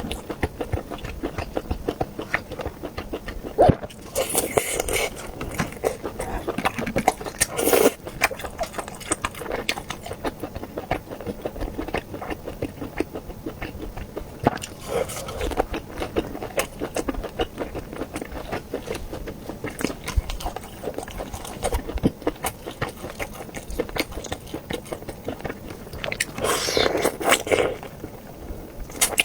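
Close-up chewing and biting of air-fried juicy sausage rings: a steady run of small wet clicks and smacks, with a few louder bites along the way.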